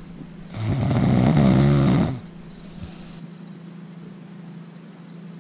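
A person snoring: one long, loud snore from about half a second in until about two seconds, then only a faint steady hum.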